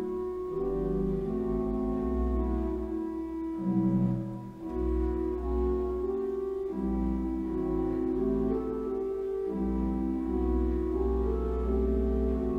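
Church organ playing sustained chords over a deep pedal bass, with a short break in the bass about four and a half seconds in.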